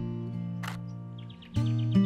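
Acoustic guitar background music: a strummed chord rings out and fades, and a fresh chord is struck near the end. A short click comes about two-thirds of a second in, and a bird gives a quick run of short repeated high notes over the music just before the new chord.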